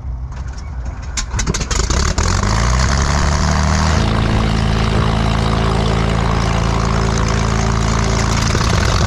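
Cessna 310's flat-six piston engine starting: the starter cranks with a rapid clatter, the engine catches a little over a second in, its pitch climbs and then settles into a steady idle about four seconds in.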